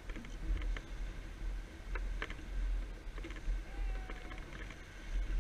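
A sailboat under way in choppy water: wind buffeting the microphone in a heavy, uneven rumble, with water rushing along the hull and several short, sharp slaps or knocks.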